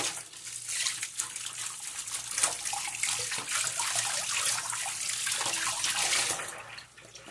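Kitchen tap water running onto a plastic lid and into a stainless steel sink as the lid is rinsed and rubbed under the stream; the splashing drops away near the end.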